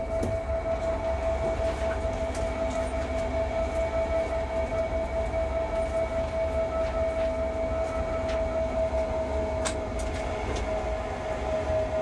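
Cab of a DB Cargo class 185 three-phase electric locomotive hauling a freight train: a steady electrical whine over the low rumble of the running gear on the track, with a few sharp clicks.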